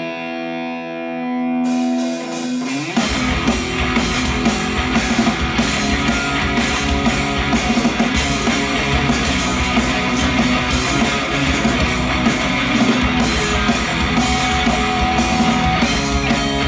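Live rock band: an electric guitar holds a ringing chord for about three seconds, then drums and distorted guitars come in together and the full band plays the instrumental intro of a song.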